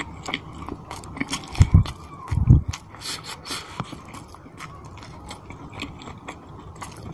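Close-miked eating of chicken curry and rice by hand: chewing with many small mouth clicks, and two deep thumps about two seconds in that are the loudest sounds.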